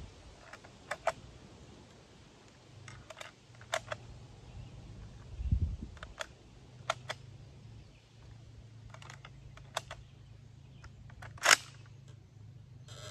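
Scattered small metallic clicks and clacks from hands working a Swiss M1911 Schmidt-Rubin rifle at the bench, with one louder snap near the end. A faint steady low hum runs underneath from about three seconds in.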